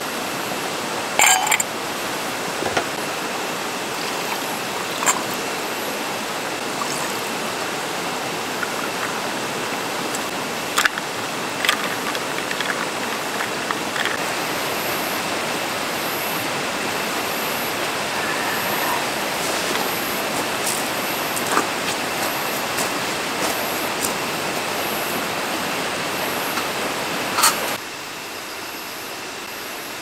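Steady rush of a valley stream, with scattered light clinks and taps over it. The rushing drops suddenly in level near the end.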